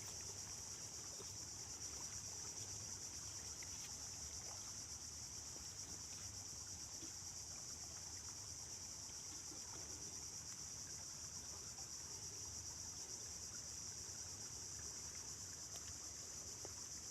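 Insects chirring in a steady, unbroken high-pitched drone, faint.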